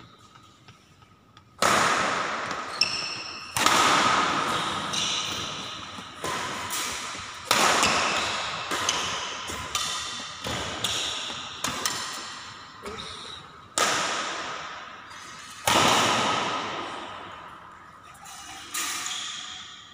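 Badminton rackets hitting a shuttlecock back and forth in a rally: about fourteen sharp strikes, one every one to two seconds, each echoing on in a large hall.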